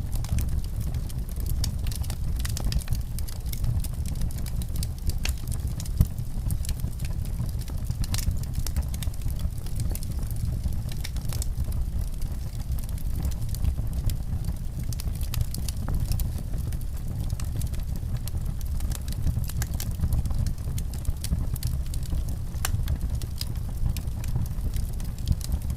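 Wood fire in a fireplace crackling, with irregular sharp pops over a steady low rumble of the flames; one pop about six seconds in is louder than the rest.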